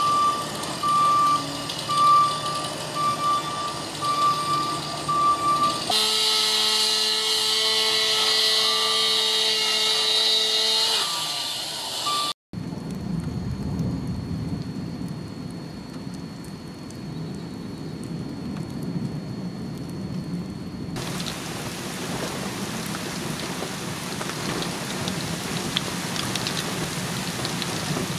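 A work truck's reversing beeper sounding repeatedly over its engine, then a machine running with a steady hum until a sudden cut about twelve seconds in. After that comes a low outdoor rumble, and from about twenty seconds in, steady rain falling.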